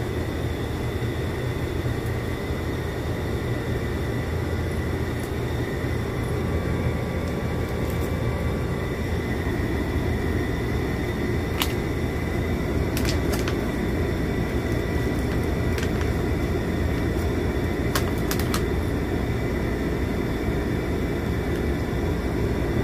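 Steady whir of a cooling fan running in a small room, with a few faint clicks of food being handled.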